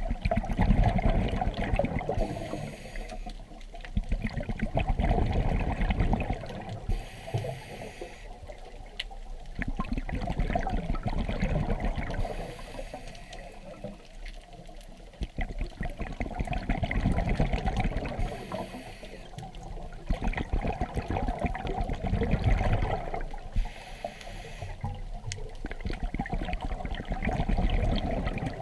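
Scuba diver breathing through a regulator underwater: a short hissing inhale, then a longer bubbling exhale, repeating about every five to six seconds.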